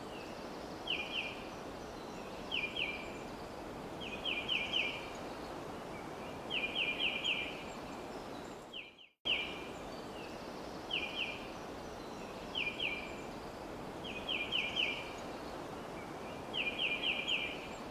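Bird calls: groups of short, sharp high notes, two or three at first, then four or five in quick succession, over a steady outdoor hiss. The same sequence repeats after a brief dropout about halfway through.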